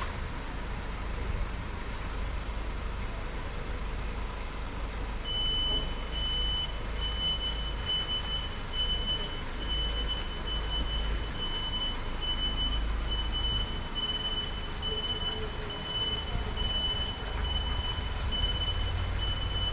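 Reversing beeper of an ambulance backing up: one high beep of the same pitch, repeating evenly, starts about five seconds in and keeps going, over a low rumble.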